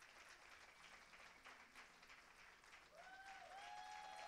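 Audience applauding, faint and spread out. About three seconds in, several long held pitched sounds join the clapping.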